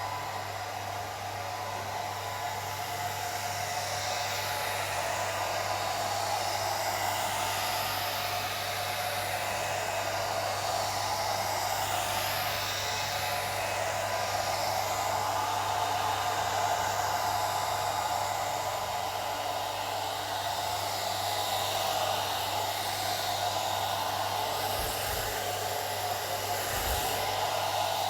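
Old hair dryer running steadily: an even rush of air with a steady hum underneath and no change in speed.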